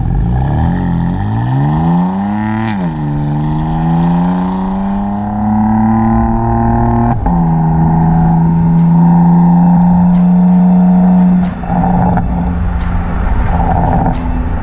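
BMW M4 F82 Competition's 3.0 L S55 twin-turbo straight-six exhaust, heard right at the tailpipes, pulling away from a standstill under hard acceleration. The revs climb, drop with a sharp crack on an upshift of the seven-speed M-DCT about three seconds in, climb again through a long second gear, and drop on another upshift about seven seconds in. After that the note holds steady as the car cruises.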